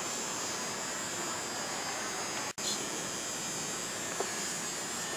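Steady background hiss and hum of a store aisle, cut off for a moment just past halfway. A faint tap about four seconds in, as a boxed action figure is handled.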